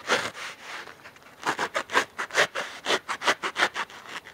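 Small hand saw blade sawing through a foam pool noodle in quick back-and-forth strokes, about four a second, with a short pause about a second in.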